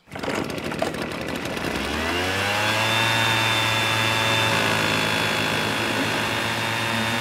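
Small engine of a hand-held power tool running rough at low speed, then revving up about two seconds in and holding a steady high-speed drone.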